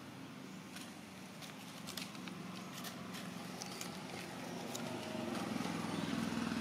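Dry leaves crackling in short scattered clicks over a low, steady engine hum that grows louder about five seconds in.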